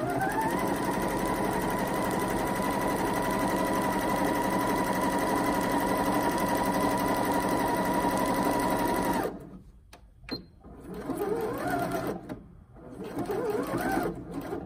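Janome 1050DC computerized sewing machine sewing a straight stitch: the motor whines up to speed, runs steadily for about nine seconds, then stops suddenly.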